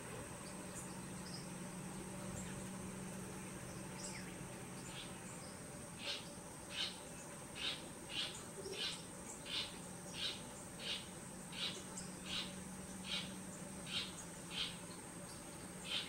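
Steady high-pitched insect drone. About six seconds in, a regular chirp joins it, repeating roughly every 0.7 seconds.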